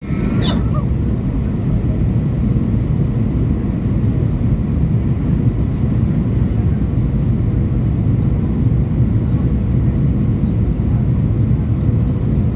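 Steady engine and airflow drone inside the cabin of an Airbus A321 in flight on its descent. A brief higher sound cuts in within the first second.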